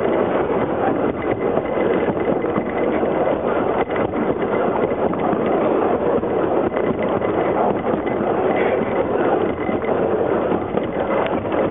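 Narrow-gauge light railway train running along the track, heard from the rear carriage: a steady rumble of wheels on rail, with wind on the microphone.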